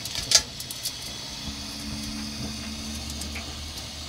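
Budgerigar bathing in a shallow puddle in a stainless-steel sink: a few sharp splashes and wing flicks, the loudest about a third of a second in, then scattered small ticks over a steady low hum.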